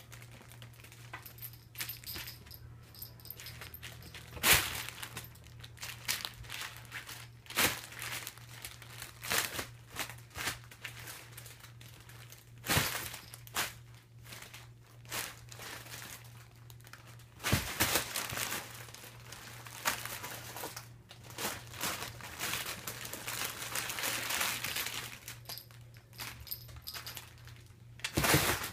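Crinkly nylon cat play tunnel rustling and crackling in irregular bursts as cats paw at it, climb on it and push through it, with a few sharp, loud crinkles.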